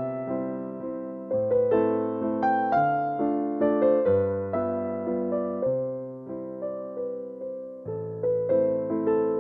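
Background piano music: notes struck one after another over a held bass, each note fading before the next.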